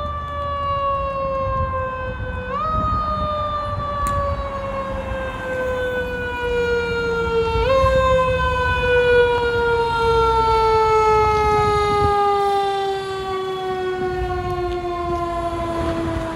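Fire truck siren winding slowly down in pitch, given a quick boost back up twice, over a low engine rumble.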